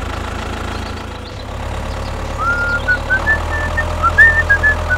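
A DIY mini tractor's small engine running steadily with a low hum. From about halfway through, a string of short, high chirping notes rises over it.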